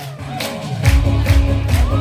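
Backing track of a song intro starting up for a live singer: a heavy bass and drum beat comes in about a second in.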